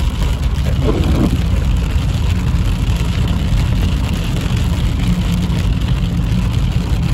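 Steady low road and engine noise inside a moving car, with rain falling on the car's body and windshield.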